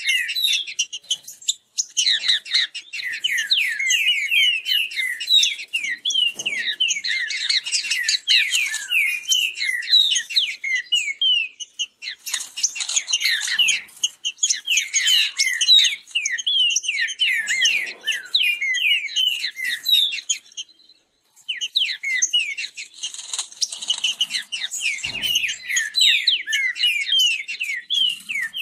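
Male green-winged saltators (trinca-ferro) singing in fast, dense runs of quick whistled phrases, one song overlapping the next as the birds counter-sing. The runs break off briefly three times.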